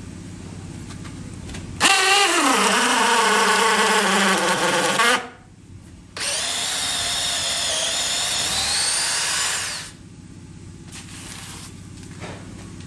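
DeWalt DCD709 20V Atomic brushless cordless hammer drill in hammer mode, boring a wood bit down into stacked 2x4 lumber, in two runs of a few seconds each. In the first, the pitch drops sharply as the bit bites in and the motor comes under load. The second run is steadier.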